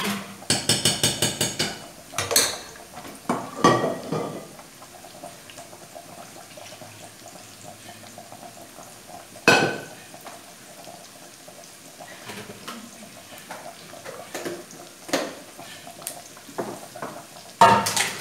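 Metal spoon clinking and scraping against a stainless-steel pot, with a quick run of about a dozen ringing taps early on. After that come scattered single knocks of pots and utensils on the counter, the loudest about halfway through.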